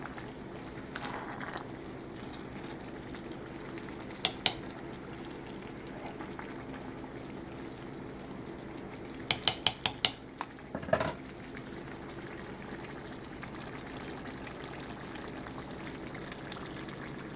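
Fried corn cooking in a pot on the stove, with a steady bubbling and sizzling. A spoon stirring it clinks against the pot twice about four seconds in, then five or six times in quick succession around ten seconds in, and once more just after.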